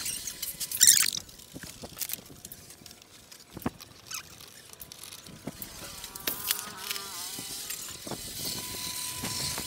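Mechanics' metal tools clicking and knocking on a Honda underbone motorcycle's engine as its clutch cover is taken off to check the clutch for wear, with a buzzing, wavering whine in the second half.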